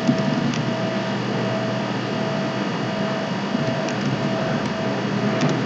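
Steady hum and hiss of background noise, with a faint tone pulsing on and off a little under twice a second and a few faint clicks.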